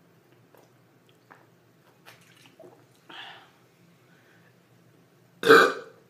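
A few faint gulps while soda is chugged from a plastic bottle, then one short loud burp about five and a half seconds in, brought up by the carbonation.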